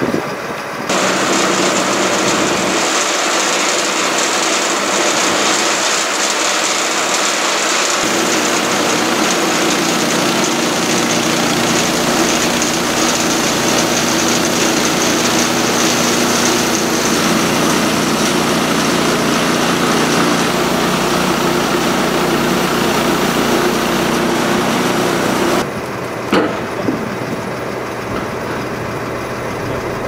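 Harbor Freight Central Machinery portable band sawmill making a cut through a log: its gas engine runs at speed while the band blade saws through the wood as the saw head is pushed along the track. The sound comes up to full level about a second in, holds steady, then drops back to a lower running level near the end as the cut finishes.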